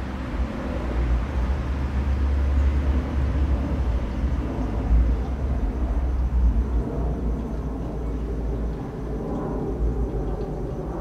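Low, uneven rumbling noise, heaviest in the deep bass.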